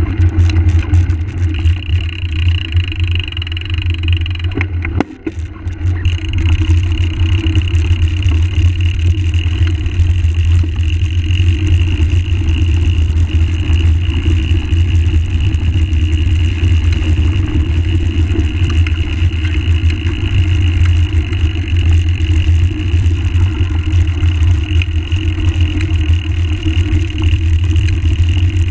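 Steady rumble of wind and tyres on gravel as a mountain bike is ridden along a trail, heard through a bike-mounted camera, with a brief lull about five seconds in.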